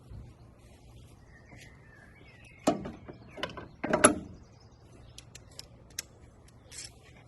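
Hand tools and metal parts clicking and knocking, with two louder knocks about three and four seconds in and a run of lighter clicks after them.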